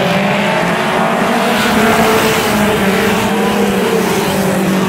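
A pack of stadium stock cars accelerating at full throttle on the green-flag start and passing close by, many engine notes overlapping and shifting in pitch. The sound is loudest about two seconds in.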